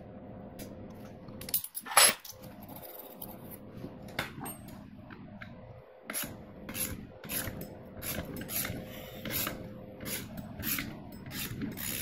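Metal hand tools clicking, clinking and scraping on a Honda C90's aluminium cylinder head: a ring spanner and locking pliers working a valve tappet adjuster lock nut while the valve clearance is set with feeler gauges. There is one loud clank about two seconds in, then a run of lighter clicks.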